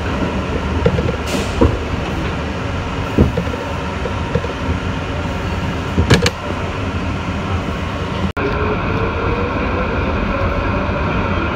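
A passenger train running, a steady rumble with a few sharp knocks from the wheels. About eight seconds in the sound cuts out suddenly, and a train follows with a whine that slowly rises in pitch.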